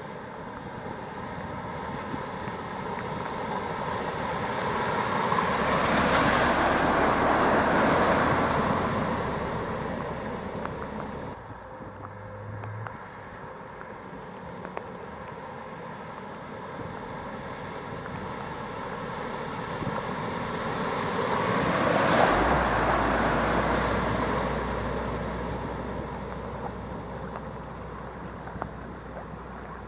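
Lorries driving through deep floodwater, their tyres throwing up spray: a rushing splash with engine hum beneath, swelling and fading as each one passes, twice.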